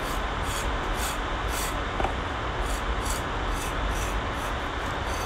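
Repeated rubbing or scraping strokes, about two a second, over a steady hiss.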